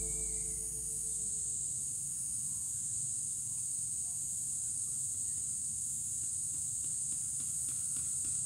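Steady, high-pitched drone of an insect chorus, gently pulsing. A few faint clicks come near the end.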